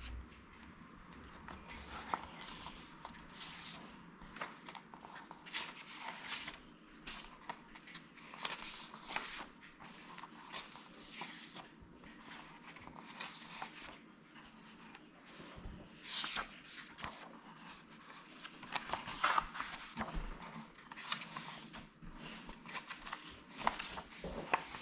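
Paper pages of a paperback book being turned and flipped by hand: irregular rustles and flicks of paper, with a quicker cluster of page flicks late on.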